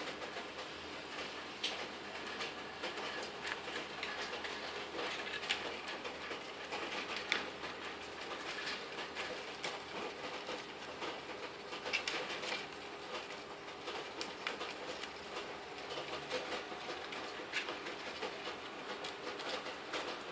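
A lovebird tearing paper with its beak: a continuous run of small, irregular rips and crinkles. This is a female lovebird cutting long strips of paper, nesting behaviour in which she tucks the strips into her back feathers.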